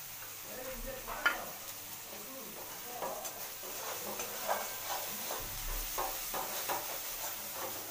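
Metal spoon stirring a thin masala gravy in a metal pot, scraping and clinking against the pot, over a steady sizzle from the cooking masala. A sharp clink about a second in is the loudest sound, and from about three seconds on the scrapes come quickly one after another.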